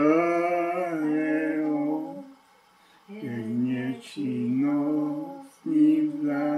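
Slow unaccompanied singing of a Slovak religious hymn, with long held notes and a pause of about a second near the middle.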